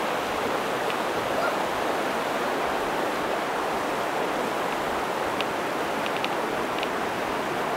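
Glacial meltwater stream rushing steadily over a stony bed, with a few faint clicks in the second half.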